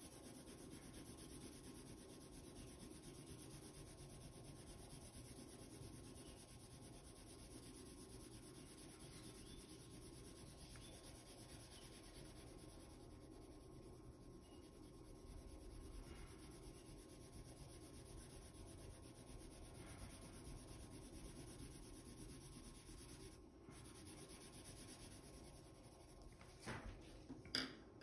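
8B graphite pencil shading on paper, a faint steady rubbing of the soft lead across the sheet. A few light knocks come near the end.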